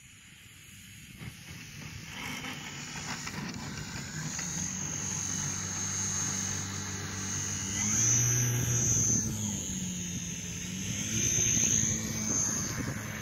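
Radio-controlled aerobatic model airplane taxiing on grass, its motor and propeller running at low throttle with a high steady whine. It grows louder as the plane comes closer, with two short throttle increases, about eight and eleven seconds in.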